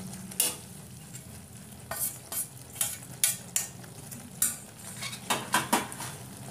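Metal spatula scraping and clinking against a steel kadhai in an irregular string of strokes, stirring grated coconut into thick, bubbling sugar syrup.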